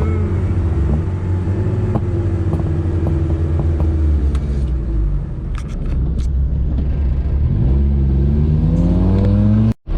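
Acura Integra (DC4) engine running under load while driving, then rising in pitch as it accelerates, before the sound cuts off abruptly near the end. The engine has a knock that the driver takes for a rod knock in an engine he thinks has just blown.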